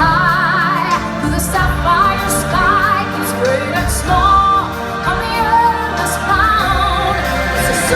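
Live stage musical performance: a singer with strong vibrato over a band with steady bass and regular cymbal strokes.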